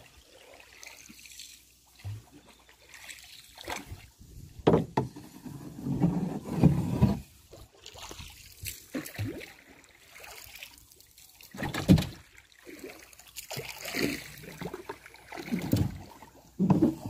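Paddling a small wooden boat: irregular paddle strokes splashing and dripping in the water, with a few sharp knocks of the paddle against the hull.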